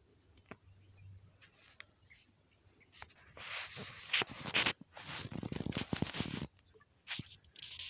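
Clothing rubbing and scraping against the phone's microphone: a burst of rustling with sharp clicks from about three seconds in until past six seconds, and a few short scrapes near the end.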